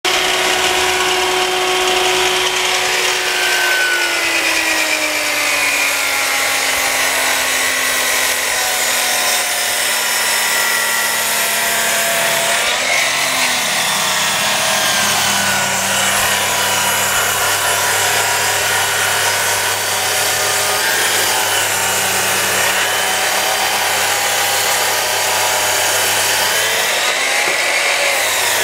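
DeWalt table saw driven by the brushed universal motor from a 2.2 kW Bosch angle grinder, running continuously with a steady whine. Its pitch sinks gradually over the first ten seconds or so, dips and recovers briefly around thirteen seconds in, then holds steady at the lower pitch.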